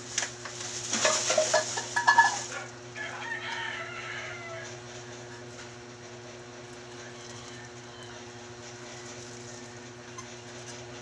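A rooster crowing once, about a second in, over a rustling noise, fading out by about four seconds; a steady low hum runs underneath.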